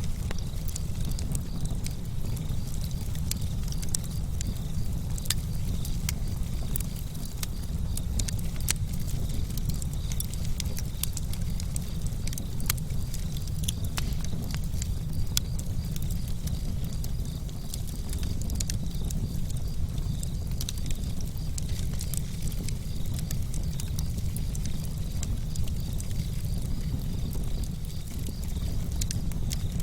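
Wood campfire burning: a steady low rumble of flame under frequent, irregular sharp crackles and pops.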